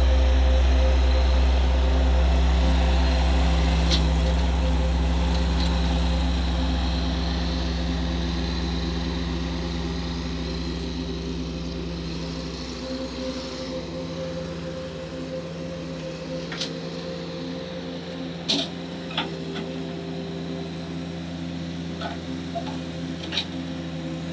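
A motor running steadily, its deep rumble fading away over the first half, with a few sharp knocks in the second half.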